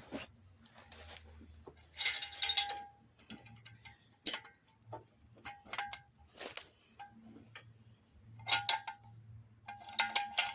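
Metal clanking and ringing as a steel jack stand is handled and set under a jacked-up riding mower: a series of sharp knocks, the loudest about two seconds in and near the end, each leaving a brief metallic ring.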